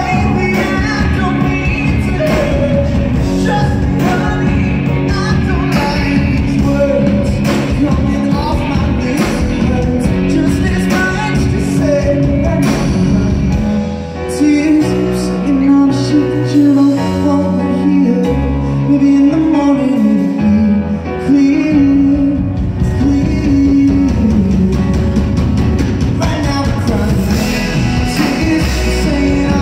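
Live band music from keyboards and electric guitar, with the level dipping briefly about fourteen seconds in before long held chords carry on.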